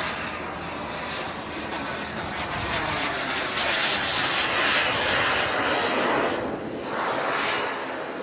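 Radio-controlled model Mirage jet flying past, its engine a loud rushing whine that swells to its loudest in the middle as the jet climbs, then eases off near the end.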